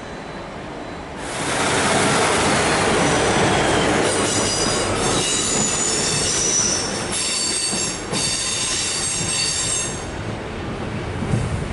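A train running close by on curved track, its steel wheels squealing against the rails in several high, piercing tones. The rolling noise jumps up about a second in, and the squeal sets in about four seconds in and eases off near the end.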